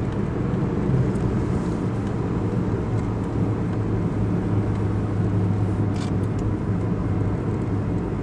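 Steady hum of a car driving along, with engine and road noise.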